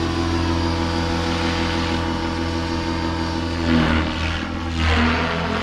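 Align T-Rex 650X RC helicopter flying in its stunt 2 flight mode: a steady motor and rotor whine, swelling louder twice near the end.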